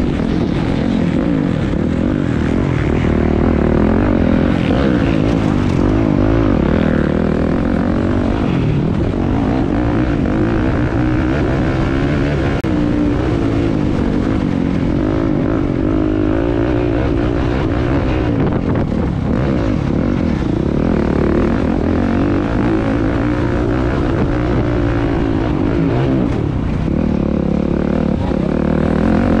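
Motocross bike engines racing around a track, several overlapping, their pitch rising and falling as riders work the throttle.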